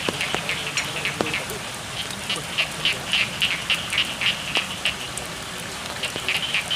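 Frogs calling in a flooded rice field, a quick run of short croaks about four a second that swells in the middle and fades, over steady rain with a few sharp drips.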